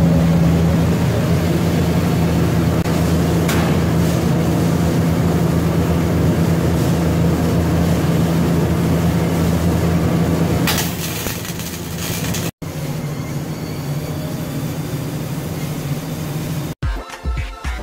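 Steady machine hum with a strong low drone and a rough, noisy texture, which changes and drops in level about eleven seconds in. Rhythmic music comes in during the last second.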